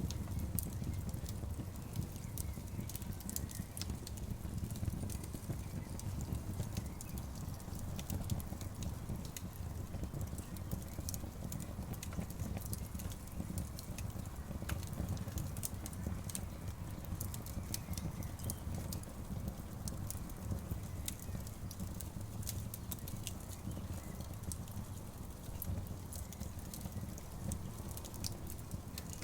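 Campfire burning, the wood crackling and popping in frequent irregular snaps over a steady low rumble.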